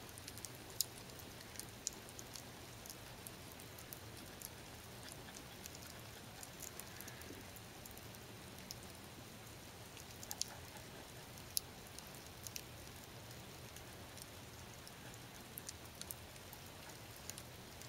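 Faint, scattered little ticks and light scratches of a pencil drawing along a carved spruce spoon blank as it is turned in the hand, over a low steady background hum.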